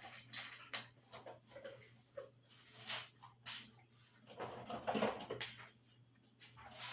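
A pet eating from its bowl: irregular small clicks and smacks of chewing, busiest about four to five seconds in.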